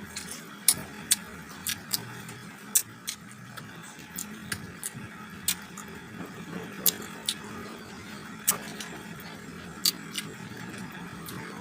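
Close-miked eating of mango: irregular sharp crunching clicks from bites and chewing, over a steady low hiss.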